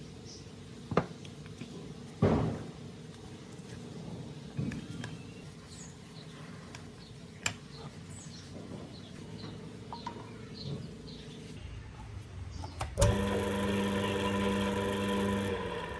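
Tool clicks and taps on a restored air-compressor electric motor, then a sharp click about thirteen seconds in and the motor starts and runs with a steady electric hum. Near the end the lowest part of the hum drops out while the rest carries on.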